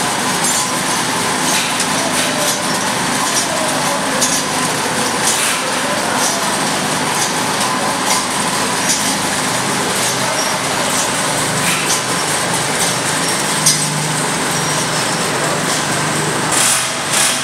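Stainless-steel Z-type bucket elevator running: a steady mechanical din with light rattles and clicks from its chain and buckets.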